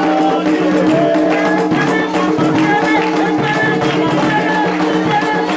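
Candomblé ritual music: voices singing a chant over steady percussion with a rattle.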